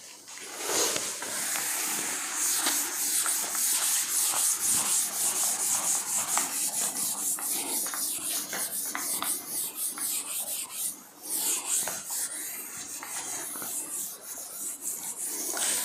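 A chalkboard duster wiping chalk off a blackboard in repeated strokes, a continuous dry rubbing with a brief pause about eleven seconds in.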